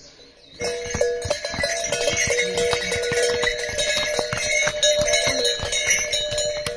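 Bells on passing pack mules and horses ringing and jangling, with hooves clattering on the stone path; it starts suddenly about half a second in.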